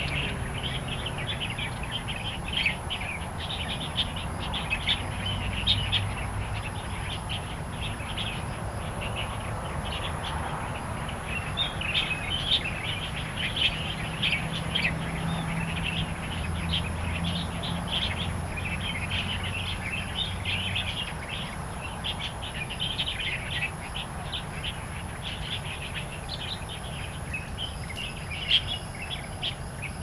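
Light-vented bulbuls chirping: a dense, continuous run of short, quick calls that overlap. Over them a thin steady high whine, and a low hum that swells and fades now and then.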